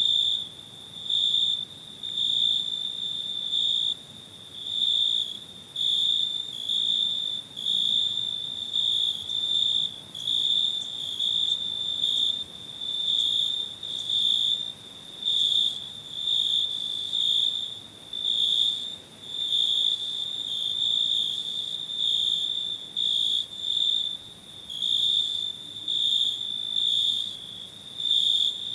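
Cricket chirping: a high-pitched trill in short bouts that pulse on and off, roughly once or twice a second.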